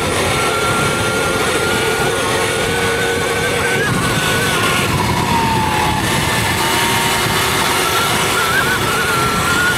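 Electric dirt bike under way: the motor's thin whine holds steady, drops in pitch about halfway through, and climbs again near the end, over a steady rushing noise.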